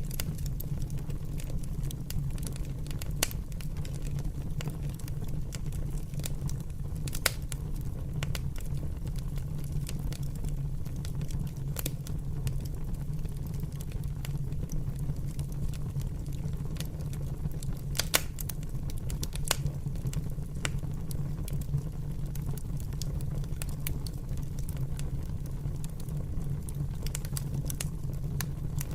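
Fire burning with a steady low rumble and irregular sharp crackles and pops, a few louder snaps among them.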